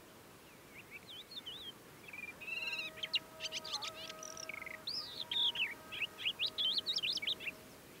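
Crested lark singing a run of quick, varied whistled phrases that start about a second in and grow busier and louder in the second half. Beneath it, a distant call to prayer from a mosque holds one long steady note.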